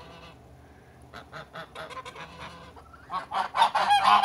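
Flock of domestic geese calling to one another: only faint short sounds at first, then from about three seconds in several geese honk loudly, their calls overlapping.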